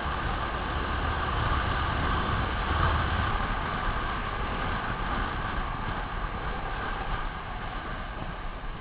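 Onboard sound of a racing kart at speed: its engine running steadily under a rushing haze of noise on the kart-mounted camera's microphone, easing off a little near the end.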